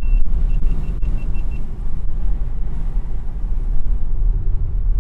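Cabin noise of a 2018 Mercedes-AMG C63 S driving in comfort mode: a steady low rumble from its twin-turbo V8 and the road. In the first second and a half, a rapid run of about six short, high electronic beeps follows a steady high tone.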